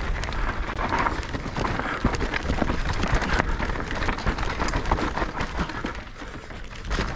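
Mountain bike being ridden over a rough dirt trail: tyres on dirt and rocks with frequent knocks and rattles from the bike, over a steady low rumble of wind on the microphone.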